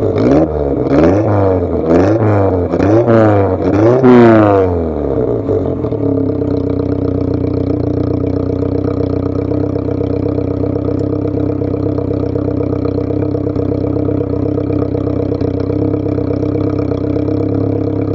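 Carbureted Volkswagen Jetta A2 inline-four engine through its stock exhaust, revved in about four quick blips over the first five seconds, then dropping back to a steady idle.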